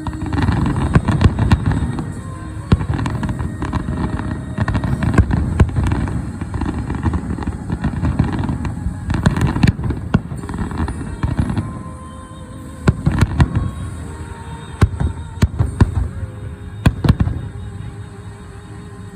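Aerial fireworks going off in a rapid series of rumbling booms and sharp cracks, thinning to a few separate loud cracks near the end, with music playing underneath.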